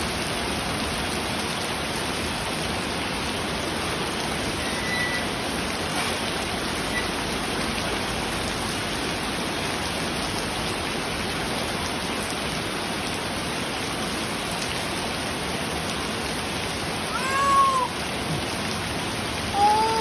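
Steady rain falling; a cat meows once near the end and again just as it ends.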